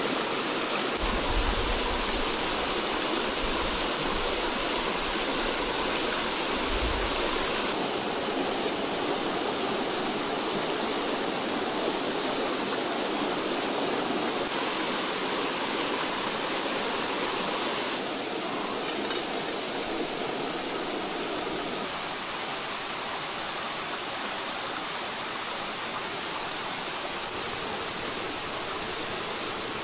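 A steady rushing noise like running water. It drops a little in level a few times, and there are a couple of low thumps in the first seven seconds.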